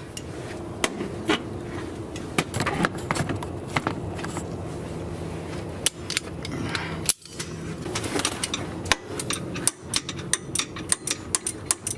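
Ratcheting gear wrench clicking and clinking as it backs off an idler pulley's 14 mm retaining nut. The clicks are scattered at first and come quickly in the second half, over a steady low hum.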